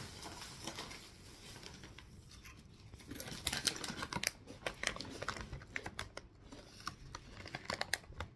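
Crinkly chip bag being handled, with a quick, irregular run of sharp crackles starting about three seconds in.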